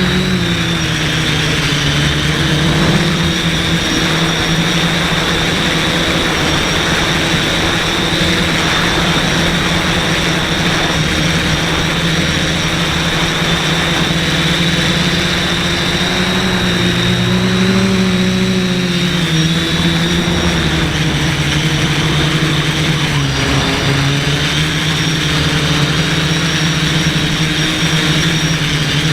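Quadcopter's brushless motors and propellers whirring steadily, with several held tones that slide up and down a few times as the throttle changes.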